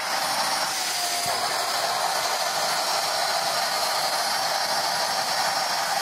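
Good Baby mini stick vacuum cleaner running steadily on carpet: a strong, even rushing hiss with a high steady whine from its motor.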